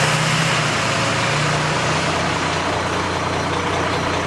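A car driving, heard from inside the cabin: a steady engine hum under constant road noise.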